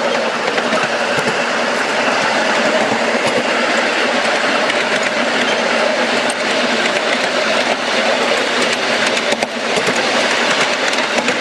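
Ride-on miniature railway train running along the track: a steady rumble and rattle of the cars' wheels on the rails, with scattered sharp clicks.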